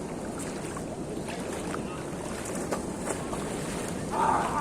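Wind buffeting the microphone over the steady wash of sea waves at the shore, with a brief, louder, higher-pitched sound near the end.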